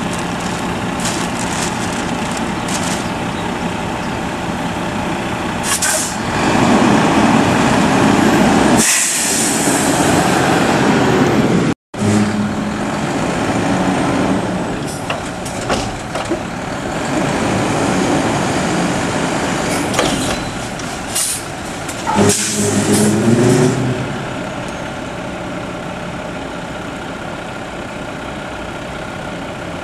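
Mack LEU garbage truck with a McNeilus Contender front-loader body running its diesel engine. It revs louder for several seconds as the hydraulic arms lift the Curotto Can over the cab and dump it, with metal clanks and bursts of air hiss from the air system. It then settles back to a steady run.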